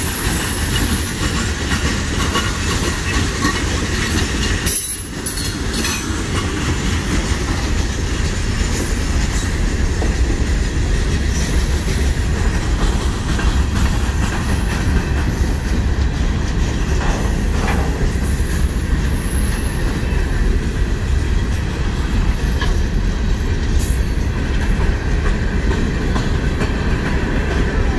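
CSX freight train of open-top hopper and gondola cars rolling past at close range: a steady, loud noise of steel wheels running on the rails, with a brief dip in level about five seconds in.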